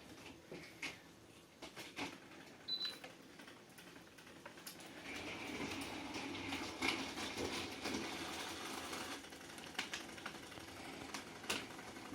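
Battery-powered toy trains running on their track: small motors whirring with clicking and rattling, getting louder about five seconds in as they come closer.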